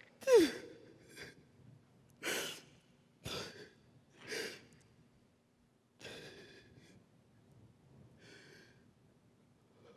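A person's short falling moan, then heavy, ragged breaths about once a second that grow fainter and further apart: acted exhaustion and distress in a dramatic performance.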